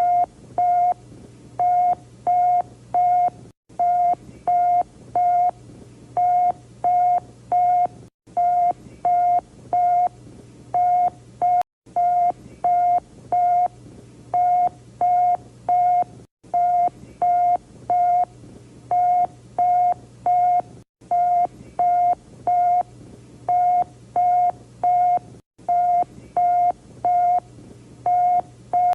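Emergency Alert System-style electronic alert tone: short beeps at one pitch, about two a second, repeating in cycles with a brief silent break every four to five seconds, over a low steady hum.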